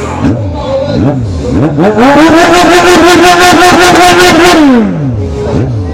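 Suzuki Bandit motorcycle's inline-four engine being revved: a few quick blips, then one long rev that climbs, holds high with a rapid stutter for about two and a half seconds, and falls back to idle.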